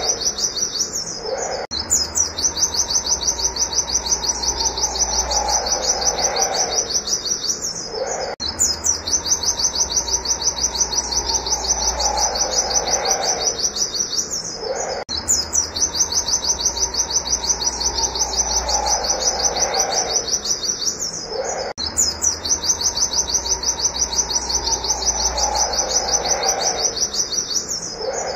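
Pleci (white-eye) singing its rapid-fire 'wit wit' song: a fast, unbroken string of high chirps. It breaks off briefly about every seven seconds and starts again in the same pattern.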